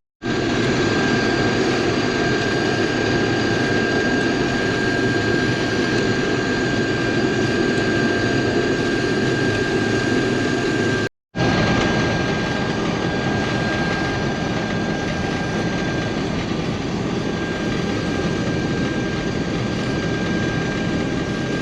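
Case IH combine running steadily while cutting wheat: an even mechanical drone with a constant high whine over it. It cuts out for a moment about eleven seconds in.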